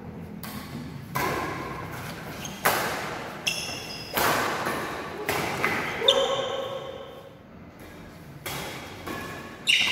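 Badminton rackets striking a shuttlecock during a doubles rally, about eight sharp hits at irregular intervals, each echoing in a large hall.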